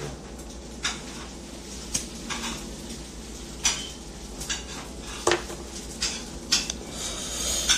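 Irregular light clicks and clinks of small hard objects knocking together, about a dozen over several seconds, over a low steady background, with a brief rush of hiss near the end.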